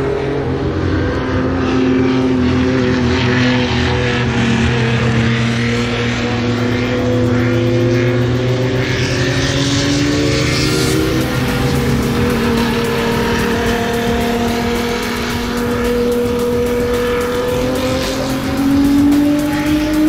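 Several racing car engines running at once, loud and without a break, their pitches rising and falling slowly and overlapping.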